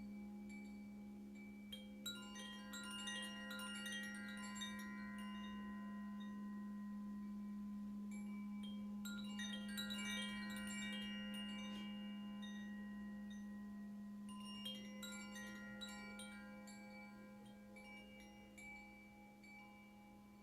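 Wind chimes ringing in three flurries, about two, nine and fifteen seconds in, each dying away slowly, over a steady low held tone.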